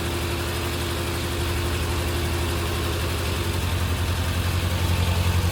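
MG Midget's four-cylinder engine idling steadily as it warms up after a cold start. A thin steady whine sits over the idle and stops about three and a half seconds in.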